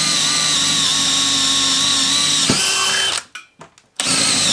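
DeWalt DCD996 cordless drill running under load, boring a 1/2-inch black oxide bit into a wooden block in drill mode, a steady motor whine. It cuts out briefly about three seconds in and starts again near the end.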